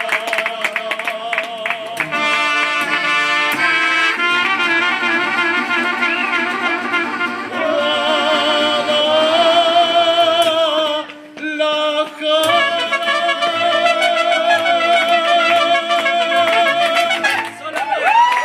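Mariachi band playing, with trumpet, accordion and guitars under men singing long held notes with vibrato. There is a short break about eleven seconds in, and the song ends just before the close.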